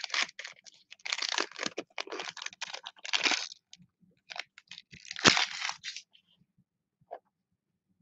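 Foil trading-card pack wrapper crinkling and tearing as it is opened by hand, an uneven run of crackles and rustles that dies away after about six seconds.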